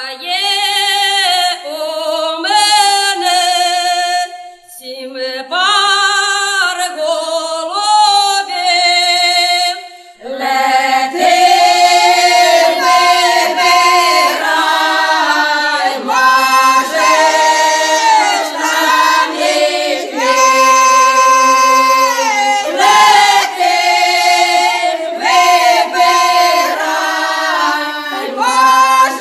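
Background music: a choir singing a cappella, with the sound growing fuller as more voices join about ten seconds in.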